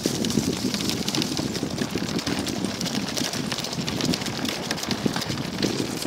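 Sacco Wagon dog cart rolling fast over a dirt trail: a steady rumble from its wheels on the ground, with a constant rattle of small clicks.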